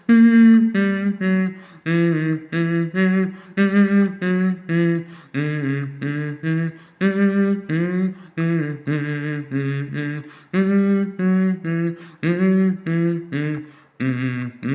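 A singer vocalising without words, a hummed or sung line of short, pitched notes at about three a second.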